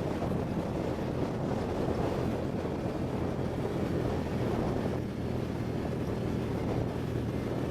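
ATV engine running at a steady pace, with wind rushing over the microphone.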